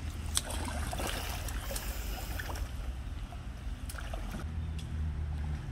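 Water splashing and lapping as a person hand-paddles an inflatable pool float, over a steady low rumble, with a couple of sharp ticks about half a second and four seconds in.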